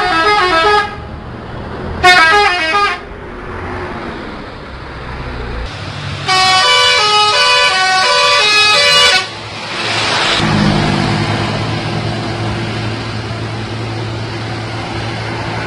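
Bus telolet horn, a multi-tone musical horn, playing short melodic phrases of quickly changing notes: a brief phrase at the start, another about two seconds in, and a longer melody from about six to nine seconds in. After it comes a rush of noise and then a low steady engine hum.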